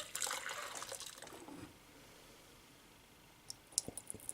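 Hot onion tea poured through a strainer: liquid splashing and trickling for about a second and a half, then tapering off, with a few light clicks or drips near the end.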